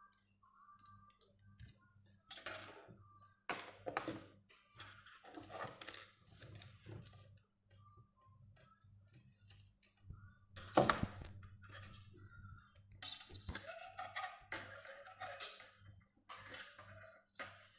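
Pliers and stiff steel wire clicking and scraping against a tabletop as the wire is gripped and bent by hand, with irregular clicks and one sharp, louder click about eleven seconds in.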